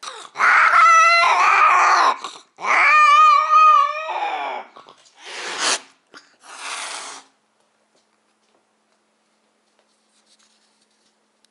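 Female cat's mating cry: two loud, wavering yowls at the end of copulation, then three short hisses as she turns on the tom.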